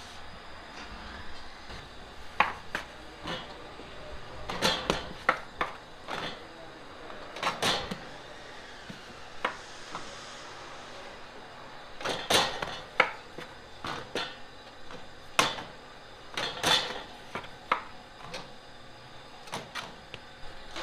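Metal dough scraper knocking on a floured board and dough pieces dropped into the metal pan of a bench scale as dough is divided and weighed: irregular sharp knocks and clatters, some in quick clusters.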